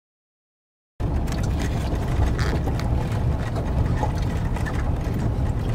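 Silence for about a second, then the steady low rumble of a vehicle driving on a dirt road, heard from inside the cab.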